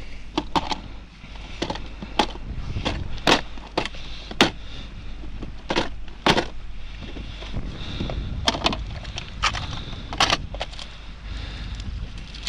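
A string of irregular sharp knocks and clicks, a dozen or more, over a steady rush of wind noise on the microphone.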